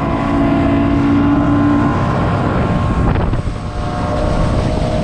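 Bass boat's outboard motor running at speed, a steady drone, with wind buffeting the microphone and water rushing past the hull.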